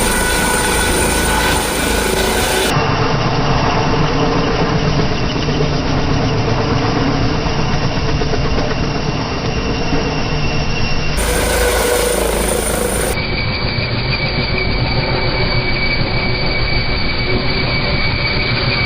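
Turbine helicopter running at close range, a dense steady rotor and engine noise with a steady high whine above it.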